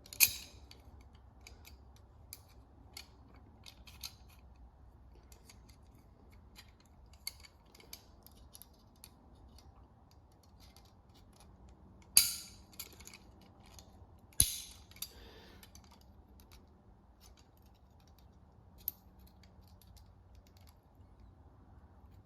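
Knipex pliers wrench being handled and squeezed on a penny: scattered light metallic clicks of the jaws and handles, with three loud sharp snaps, about half a second in, about twelve seconds in and about two seconds after that.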